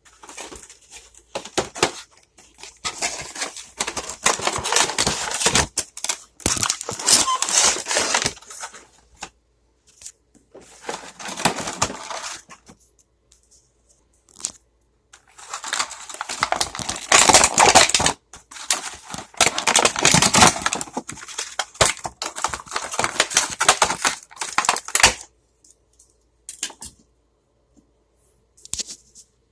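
Toy-plane packaging being torn and crinkled open by hand, in several long bouts of rustling with pauses between, then a few sharp clicks near the end.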